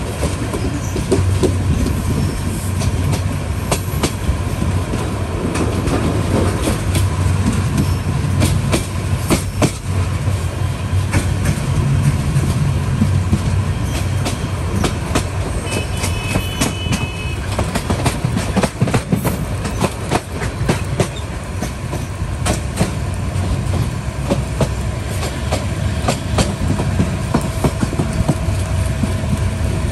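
Intercity passenger train running, heard from inside a moving coach by its open doorway: a steady low rumble of wheels on the rails, with frequent irregular clicks as the wheels pass over rail joints.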